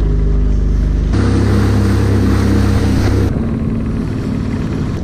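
Sea-Doo jet ski engine running under way, with water and wind rush. About a second in the sound jumps to a heavier, rougher run, then about two seconds later it drops back to a lighter steady running as the craft nears the shore.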